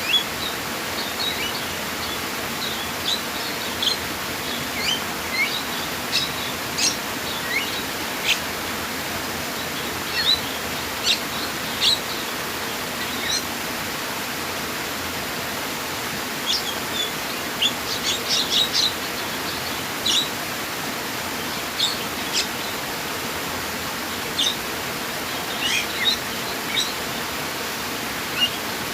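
Steady rushing of flowing water, with small birds giving short, high chirps and calls scattered over it, in a busy cluster about two-thirds of the way through.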